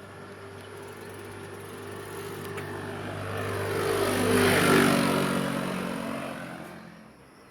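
A motor vehicle passes close by. Its engine and tyre noise grow louder to a peak a little past halfway, then fade, and the engine's pitch drops as it goes past.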